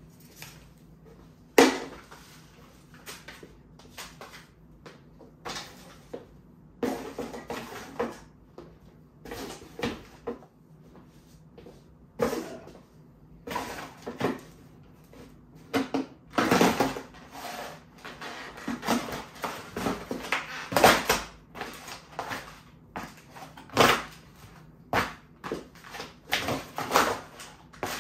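Cardboard boxes and paper rubbish being crushed underfoot in hard-soled flat shoes: irregular crunches and crackles of buckling cardboard and crumpling paper, mixed with knocks of the shoes on a wooden floor. It begins with one sharp knock and grows denser and louder through the second half.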